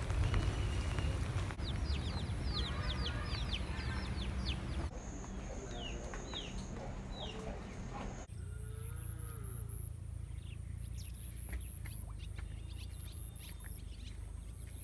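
Outdoor ambience that changes abruptly every few seconds as the clips cut. Birds chirp in quick falling notes, and domestic fowl call, over a steady low rumble.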